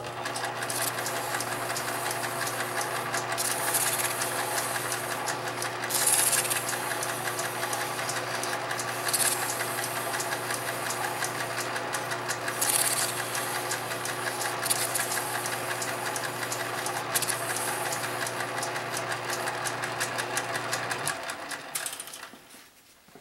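Metal lathe running steadily with a hum, while 400-grit sandpaper held by hand against a small model spar spinning in its three-jaw chuck adds a hiss that swells with each pass. The lathe stops near the end and the sound dies away.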